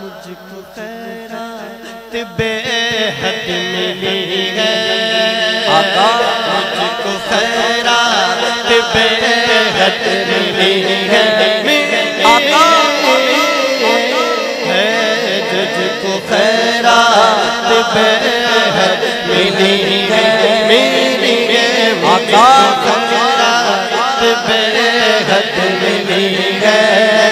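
A man singing a naat, long drawn-out phrases with the pitch sweeping up and down. The voice comes in louder about two seconds in after a softer opening.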